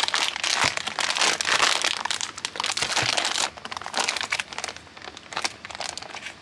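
Metallic anti-static shielding bag crinkling as it is handled and pulled open around a graphics card. The crinkling is dense for about the first three and a half seconds, then turns softer and more scattered.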